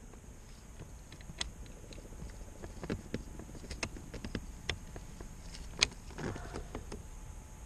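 Scattered small clicks and clinks of hands working the throttle and gear cable ends on a Quicksilver remote control's metal mechanism, the sharpest click about six seconds in.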